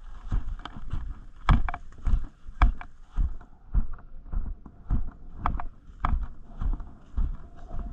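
Footsteps of a person walking on grass, heard as dull thumps through a body-worn camera, about two steps a second in an even rhythm, with heavy breathing close to the microphone.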